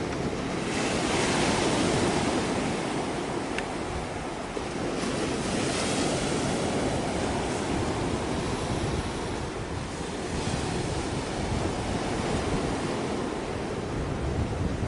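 Wind rushing over the microphone together with the wash of sea water at the shore, a steady noise that swells and eases in gusts.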